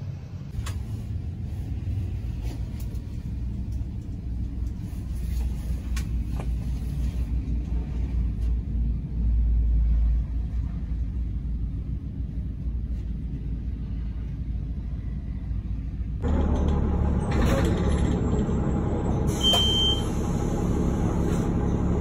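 Steady low rumble of a motor vehicle heard from inside it while stopped. About 16 seconds in it turns suddenly louder and fuller as the vehicle gets moving, with a short high beep a few seconds later.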